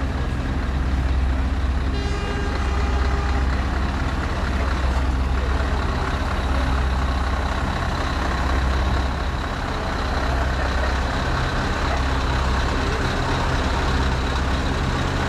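Scania R500 truck's V8 diesel engine running with a deep, steady note as the truck and trailer pull slowly past. A short higher-pitched tone sounds about two seconds in.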